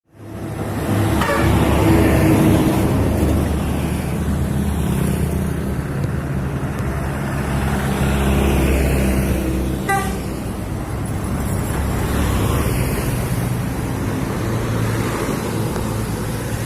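Large bus passing close by, its diesel engine running loud, sounding a multi-tone 'telolet' horn.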